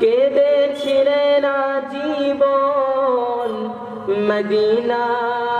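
A man's voice singing a Bengali devotional verse in a slow, drawn-out melody, holding long notes that bend gently in pitch.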